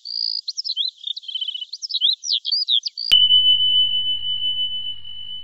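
Intro sound effects: quick high chirps and trills like a small songbird, then a sudden bell-like ding about three seconds in that rings on as one steady high tone, slowly fading.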